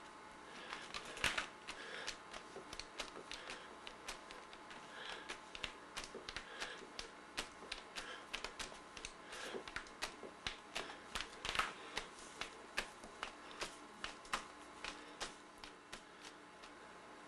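Fingertips dabbing paint onto a sheet of paper on a table: irregular light taps, a few a second, with two louder knocks about a second in and about two-thirds of the way through.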